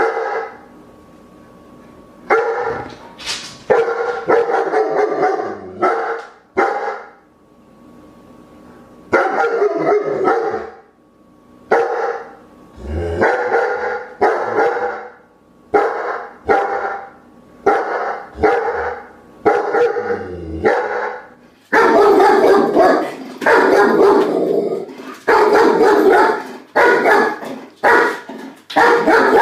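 A dog barking repeatedly, short single barks and quick pairs with pauses between them. From about two-thirds of the way in, the barking comes faster and more continuously over a louder background.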